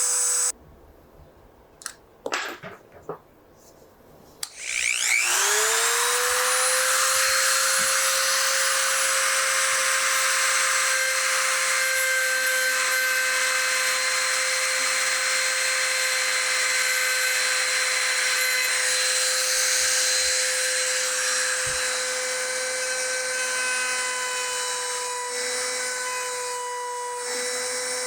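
Small high-speed electric grinder grinding down a wooden dowel in a rifle stock: it stops about half a second in, a few clicks follow, then it spins back up with a rising whine and runs steadily with a high, even whine.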